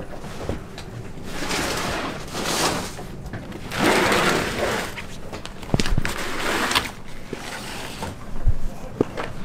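Hard-shell suitcases being slid and dragged across the floor of a bus luggage hold, in three longer scrapes, the loudest about four seconds in, with a few sharp knocks as the cases bump against the hold.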